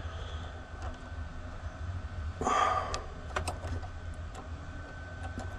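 Light metallic clicks and taps of a small Allen wrench working the damping adjuster valve out of the top of a Tein coilover, with a brief rush of noise about two and a half seconds in.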